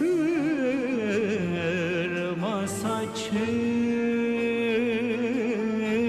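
A male voice sings a slow Turkish classical song in makam Uşşak, holding long, ornamented notes with wide vibrato. A small ensemble of violin, cello and kanun accompanies it.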